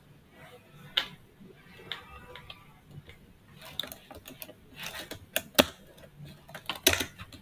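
Computer keyboard typing and mouse clicks: a scatter of short, sharp clicks and taps, thickest in the second half.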